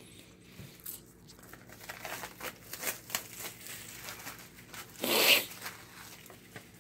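Plastic shrink-wrap crinkling as it is pulled off a cardboard game board, with a louder tear about five seconds in.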